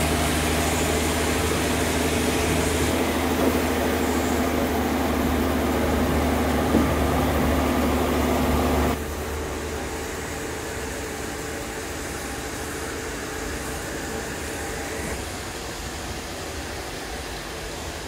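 Machinery running steadily with a low engine-like hum. About nine seconds in, the hum cuts off abruptly and a quieter, even mechanical noise carries on.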